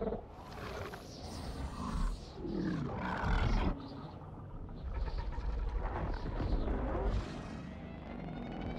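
Movie-monster roar sound effects: several drawn-out roars over a heavy low rumble, the loudest about three seconds in, with a rising pitched tone building near the end.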